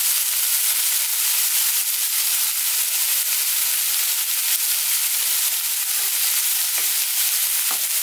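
Sliced yellow onion and minced garlic frying in hot oil in a pan, with a steady sizzle.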